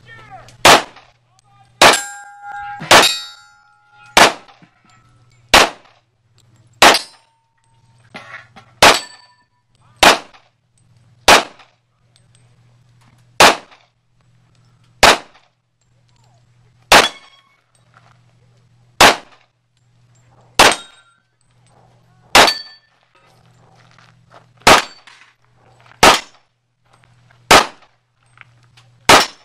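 Handgun shots fired one at a time at an unhurried pace, roughly one every one to two seconds. Several hits are followed by the brief ring of steel targets.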